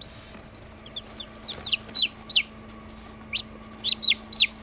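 Newly hatched chicks peeping: about a dozen short, high peeps that drop in pitch, some single and some in quick runs of two or three, over a faint steady hum.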